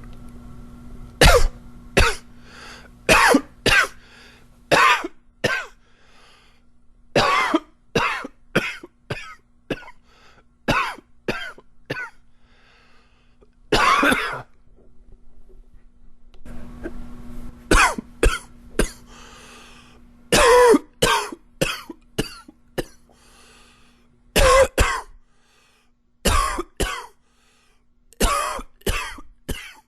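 A man coughing hard in repeated fits, each a quick run of coughs, with short pauses between the fits: a smoker's cough.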